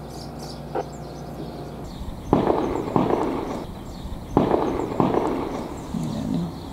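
Four shotgun shots in two quick pairs, the second pair about two seconds after the first, each shot followed by a rolling echo.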